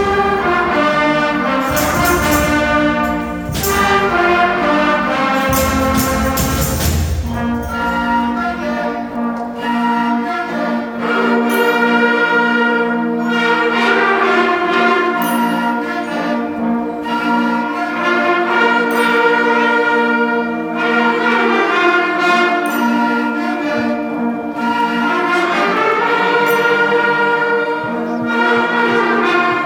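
A sixth-grade concert band of woodwinds and brass playing a slow piece in sustained chords under a melody line, the whole band coming in together at the start. A low rumble swells under the opening chords for the first seven seconds or so.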